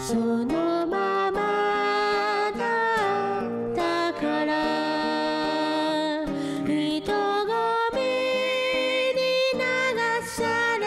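A man singing a slow song into a microphone, accompanying himself on acoustic guitar.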